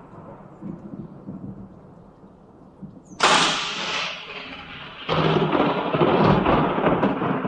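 Thunder: a low rumble, then a sudden sharp crack about three seconds in that fades away, followed by a second loud rolling peal about five seconds in.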